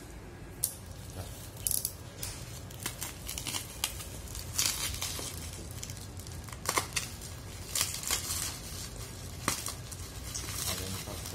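Packaging being opened and handled: crinkling plastic and cardboard with short tearing sounds and scattered clicks.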